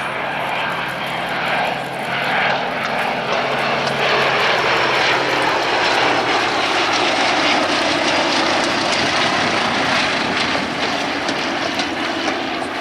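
Gloster Gladiator's piston radial engine and propeller running in flight. A steady engine drone for the first five seconds gives way to louder engine and propeller noise as it comes closer.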